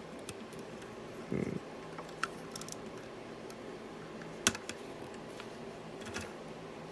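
LEGO plastic pieces clicking and tapping as they are handled. There are a few scattered clicks, with one sharper click about four and a half seconds in, over a faint steady hum.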